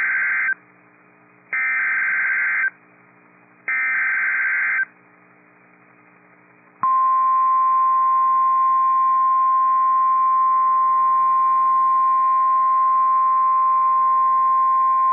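NOAA Weather Radio Emergency Alert System (SAME) header: three bursts of buzzy digital data tone, about a second each with short gaps, the first already under way. About seven seconds in, the steady single-pitch 1050 Hz weather radio warning alarm tone starts and holds. Together they are the signal that a new warning broadcast is about to follow.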